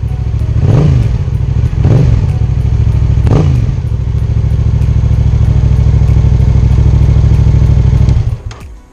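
Yamaha XSR700's 689 cc parallel-twin engine idling on its newly remapped ECU, revved up and back three times in quick blips in the first few seconds, then switched off about eight seconds in.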